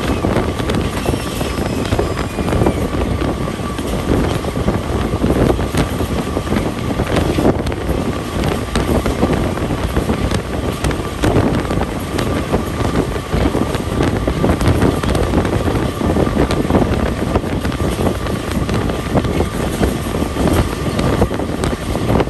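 Passenger train coach running at speed, heard from an open window: wheels rumbling on the rails with irregular knocks, wind buffeting the microphone, and a faint steady high whine underneath.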